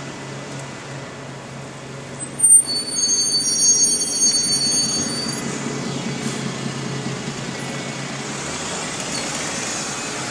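Alexander Dennis Enviro200 single-decker bus pulling into a stop, its engine running with a steady low hum. A sharp burst comes about two and a half seconds in, then the brakes squeal in several high tones for about two seconds as it comes to a halt.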